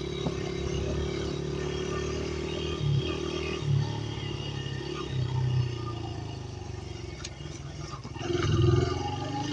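Dirt bike engine running while riding, with several short throttle blips and a louder rev near the end.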